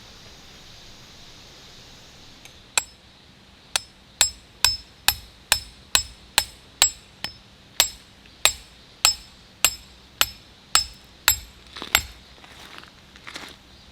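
A hammer driving a steel tent peg: about eighteen sharp blows, roughly two a second, each with a metallic ring, over a faint hiss of rain.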